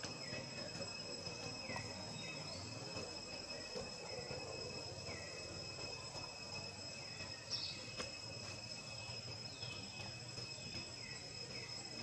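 Faint, steady high-pitched insect drone, with short falling calls repeating every second or two.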